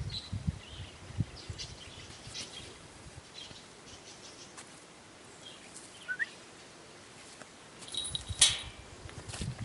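Quiet outdoor background with scattered faint bird chirps. Near the end comes a short high tone, then a loud rustling thump with rumbling handling noise as the Harris hawk launches from the gate.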